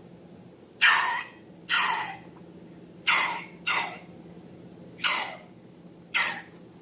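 Slime being squeezed and worked, giving six short wet squishing bursts at irregular intervals.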